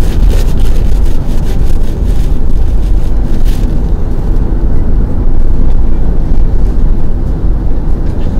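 Steady, loud low rumble of road and wind noise inside a moving car's cabin, with a few faint crackles in the first few seconds.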